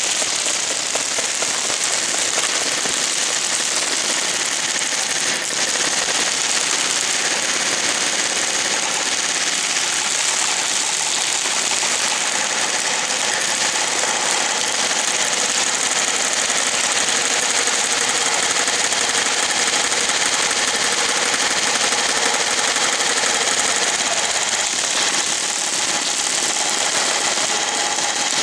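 Several airsoft guns firing full-auto at once in one continuous, unbroken rattle, with BBs pattering into their target.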